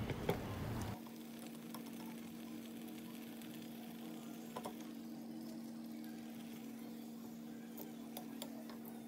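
Medu vadas deep-frying in hot oil in a kadai, the oil bubbling and sizzling faintly, with a few light clicks of a steel slotted spatula. A steady low hum runs under it.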